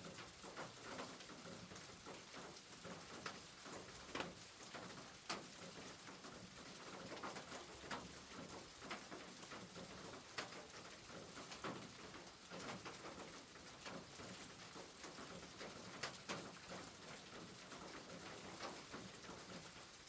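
Light rain falling, an even hiss with scattered drops and drips tapping at irregular moments; a bird cooing like a dove can be heard at times.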